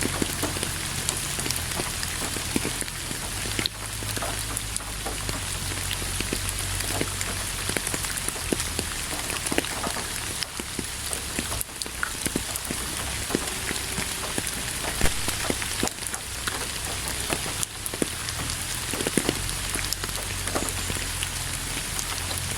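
Steady rain falling on a surface, a continuous hiss with many distinct drop ticks scattered through it, over a low rumble.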